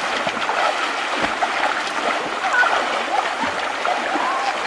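River water rushing steadily, with splashing.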